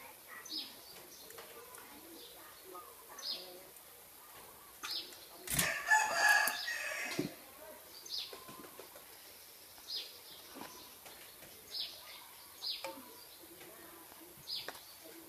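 Birds chirping: short, high, falling calls repeating every second or two. About five and a half seconds in, a louder, harsher sound lasts about a second and a half.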